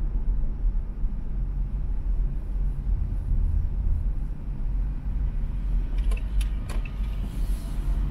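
Steady low rumble of a car driving in slow traffic, heard from inside the cabin. A few light clicks come about six seconds in.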